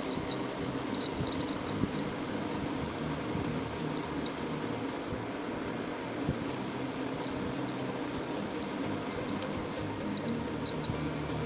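The small battery-powered buzzer of a homemade door alarm sounding a steady, high-pitched tone while the alarm is tested. The tone stops and restarts several times, in short stutters about a second in and in repeated brief breaks during the second half.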